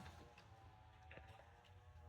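Near silence: a faint low hum and faint steady tones, with a few soft ticks.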